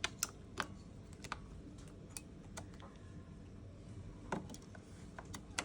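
Batteries being fitted back into the battery compartment of a Yale digital door lock: a series of sharp, irregularly spaced clicks and clacks of batteries and plastic.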